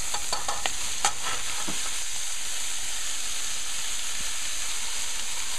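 Oil sizzling steadily in a hot pan of frying shrimp as sliced portobello mushrooms are tipped in from a bowl, with a few light taps in the first second.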